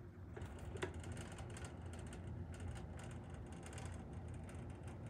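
Faint irregular clicking and rattling of a plastic toy car being turned over in the hands.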